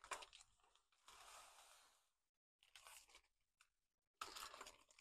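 Faint crinkling and rustling of plastic zip-top bags being handled and shuffled through, in several short bursts, with a longer rustle about a second in and a louder one near the end.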